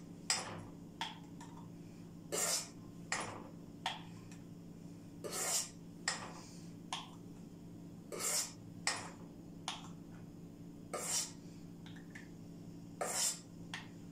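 Metal ladle scraping and clinking against a stainless steel pot and the rim of a glass jar as thick strawberry jam is spooned into the jar: repeated short scrapes and taps, roughly one a second, over a steady low hum.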